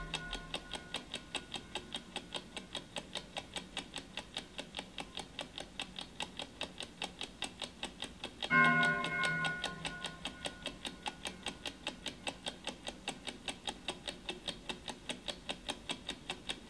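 Clock ticking fast and evenly, about four ticks a second. About halfway through, a single bell-like chime strikes once and rings out over a second or two while the ticking goes on.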